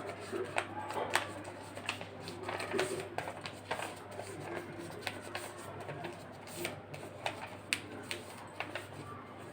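A torn-out diary page being crumpled and shaped by hand: irregular crackles and rustles of paper.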